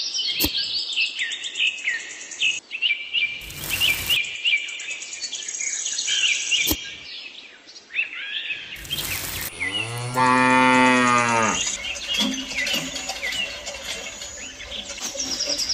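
Birds chirping for the first half, with two short bursts of noise, then a cow's single long moo about ten seconds in.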